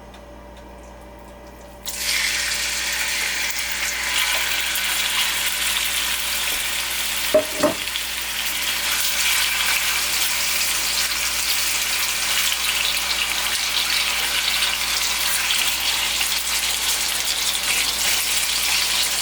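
Raw chicken thigh pieces dropped into hot oil in a wok on high heat: a loud sizzle starts suddenly about two seconds in and carries on steadily. Two brief louder knocks come about seven seconds in.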